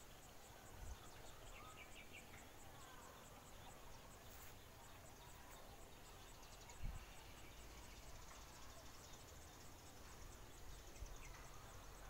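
Faint insects chirping in a field at dusk: a thin high-pitched pulse repeating about three times a second, with a few faint bird chirps. One soft low bump comes about seven seconds in.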